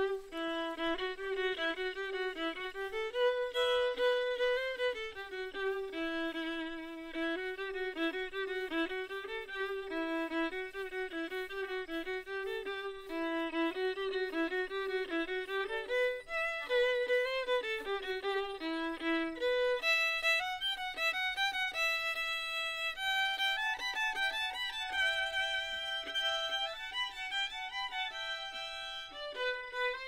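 Violin playing a melody in its lower register. About two-thirds of the way through, the tune moves up higher, and near the end a second violin is playing along.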